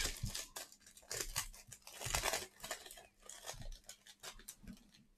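Packaging of a trading-card hanger box being torn open, a string of short, irregular tearing and crinkling noises that die away near the end.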